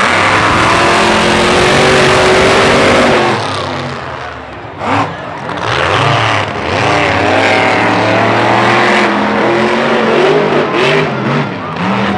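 Monster truck engines revving hard, easing off briefly about four seconds in, then revving up again.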